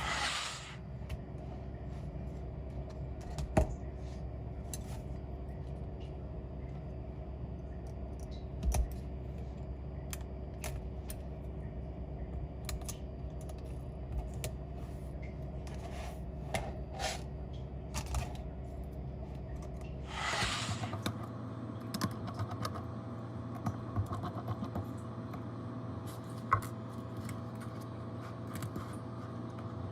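Scattered small clicks and taps of metal tools on a phone repair bench over a steady hum. A short hiss comes about twenty seconds in, after which the hum changes pitch.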